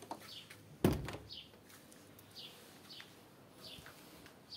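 A songbird calling outside with short, falling chirps repeated about every half second. About a second in, a door shuts with a single heavy thunk.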